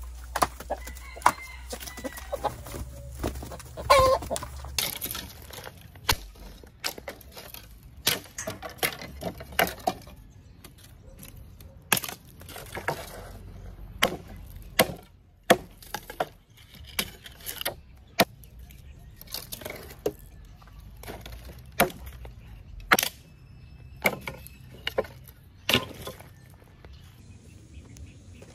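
A chicken clucks for the first few seconds. Then a machete chops old wooden planks into small pieces: sharp, irregular chops and cracks of splitting wood, about one every half second to two seconds.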